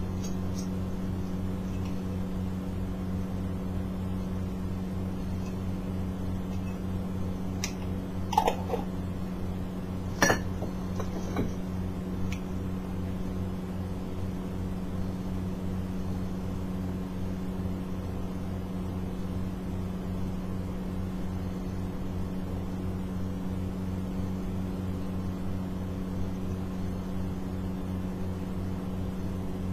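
A steady low electrical hum, with a few light clinks and taps of small metal spatulas and a jar against a tray between about eight and twelve seconds in, the sharpest about ten seconds in.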